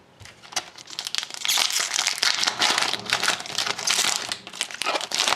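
Crinkling and tearing of a hockey card pack's wrapper as it is torn open and handled: a dense crackle of many small clicks that starts about half a second in.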